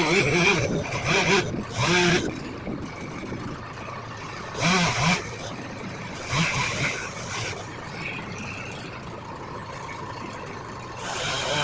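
Short calls of men's voices over a steady motor hum.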